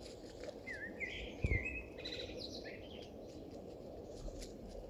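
A small bird chirping a quick run of rising and falling notes for about two seconds over a steady low background rumble, with a dull thump about a second and a half in.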